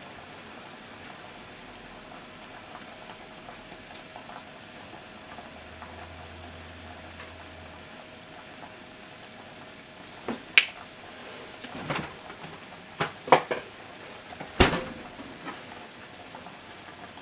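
Steady low hiss with a faint steady hum, then, from about ten seconds in, six or so sharp clicks and knocks of kitchenware being handled: a plastic grated-cheese shaker and a ceramic plate on a stovetop.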